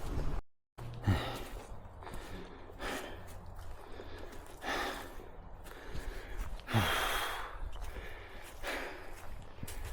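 A person breathing hard, with a heavy, noisy breath about every two seconds, the breathing of someone exerting themselves. The sound cuts out completely for a moment about half a second in.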